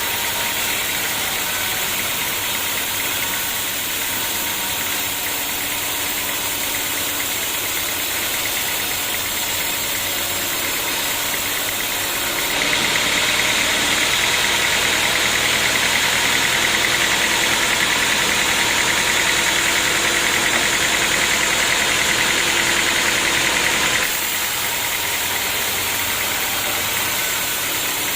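Sawmill machinery running steadily. From about halfway in, for some eleven seconds, a louder, higher hiss comes as the saw cuts through the acacia log, then it drops back to the steady machine sound.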